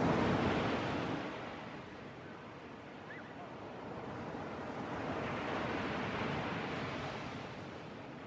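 Sea surf breaking on a beach: a steady wash of waves that swells loudest at the start, eases off, then builds again about five to seven seconds in.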